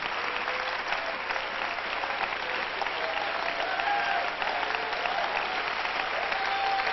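Large church congregation applauding, a dense, steady clapping, with a few voices calling out over it in the second half.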